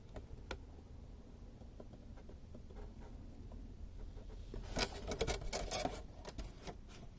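Handling noise from a plastic device and its packaging: a few faint clicks, then a cluster of sharp clicks and rustling about five seconds in.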